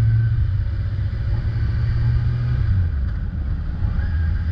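Kawasaki ZX-10R's inline-four engine running steadily while the bike is ridden, under a heavy low rumble.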